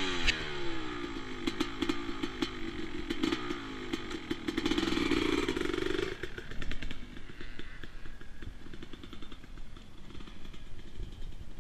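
Motocross bike engine revving and dropping back, then running steadily, and falling away about six seconds in to a fainter, uneven clatter as the bike rides off down the track.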